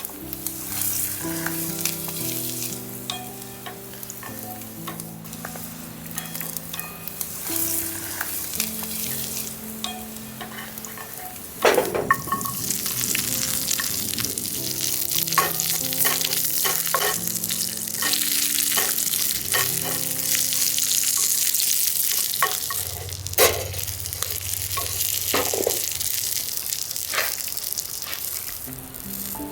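Food sizzling in a frying pan, with sharp knocks and scrapes of a utensil stirring it. The sizzle grows louder about twelve seconds in, just after a loud knock. Soft background music plays underneath.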